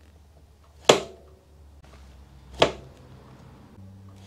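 Metal exhaust silencer of a BMW GS motorcycle tapped twice by hand, about a second apart and a second and a half apart; each tap rings briefly with a bit of echo, almost like a chord.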